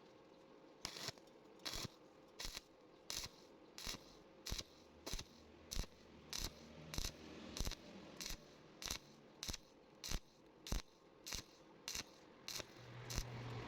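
Arc welding on thin iron in short pulses: the arc is struck briefly about once every 0.7 seconds, each burst a short sharp crackle, stitching the weld a bit at a time.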